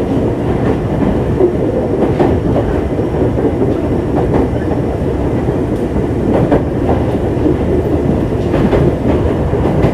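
Running noise heard inside a JR 205-0 series electric train's motor car with inner-fan traction motors: a steady rumble of wheels on rail, with faint clicks as the wheels pass over rail joints about every two seconds.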